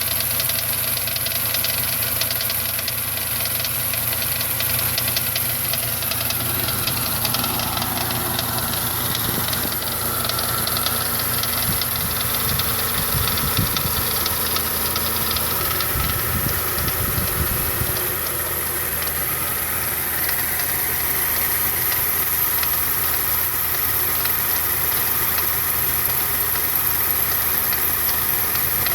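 1995 Toyota Land Cruiser FZJ80's 4.5-litre 1FZ-FE straight-six engine running steadily with an engine knock.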